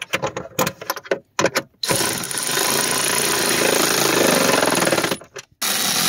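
Power tool spinning a socket on an extension, driving a dash trim-panel screw home with a fast rattling run of about three seconds. It stops briefly near the end and starts again. A few light clicks of handling the screw and socket come before it.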